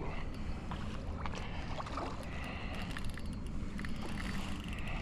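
Wind rumbling on the microphone and water lapping against a kayak's hull, steady throughout, with a few light clicks.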